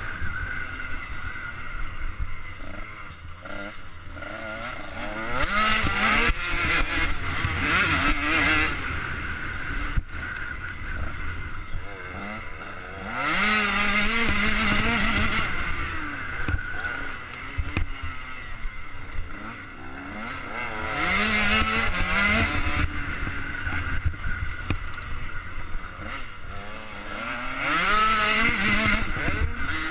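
KTM 85 SX two-stroke motocross engine ridden hard on track, revs climbing and dropping again and again through gear changes and corners, with four louder bursts of full acceleration. Wind rumbles on the helmet-mounted microphone underneath.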